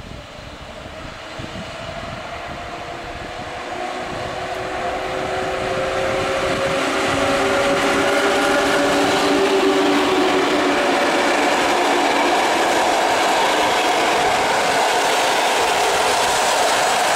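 EP07 electric locomotive hauling a train of PKP Intercity passenger coaches, approaching and passing through the station. It grows louder over the first several seconds, with a whine of several tones that glides slightly lower as the locomotive goes by. This gives way to steady wheel-on-rail noise as the coaches roll past.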